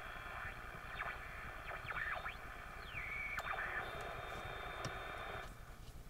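Jefferson-Travis transistor radio's small speaker hissing with static and gliding whistles as its AM tuning dial is turned between stations. The static cuts out about five and a half seconds in.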